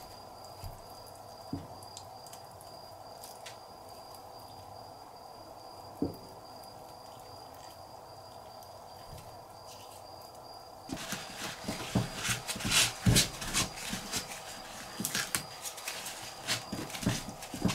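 Faint steady room hum with a few small taps from handling the bigfin reef squid's body. Then, about eleven seconds in, a fast run of rubbing, scrubbing strokes as a towel is worked hard over the squid mantle on a plastic cutting board to rub the skin off.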